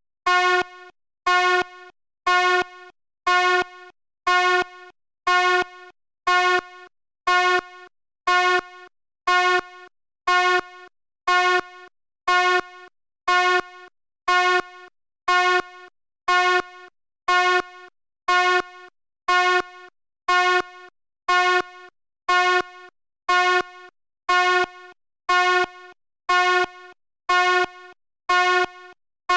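Fire alarm horn sounding in evenly repeated blasts, a little more than one a second. Each blast is a buzzy tone that starts loud, drops to a quieter tail and cuts off.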